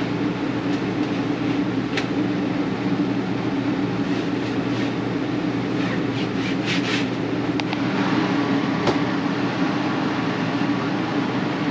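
Steady mechanical drone with a constant low hum, broken by a few short rubbing and tapping sounds of a cloth wiping a tabletop.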